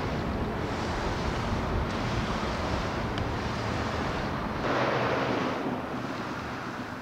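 Street traffic noise mixed with wind buffeting the microphone: a steady rushing hiss that swells louder for about a second near five seconds in, then settles a little quieter.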